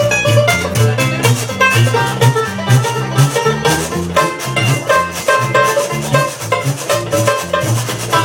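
Jug band playing an instrumental break: banjo picking over a bouncing line of low bass notes from the upright bass and jug, with the washboard's steady scraped rhythm.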